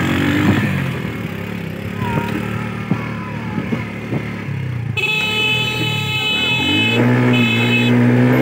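A motorcycle engine runs under way on a dirt road, its pitch rising near the end as it accelerates. About five seconds in, a horn sounds for about two seconds, then again briefly.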